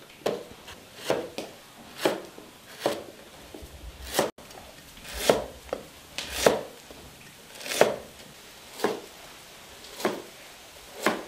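Chinese cleaver slicing a peeled fresh spring bamboo shoot into thin slices, each cut ending in a knock on the cutting board, at about one stroke a second.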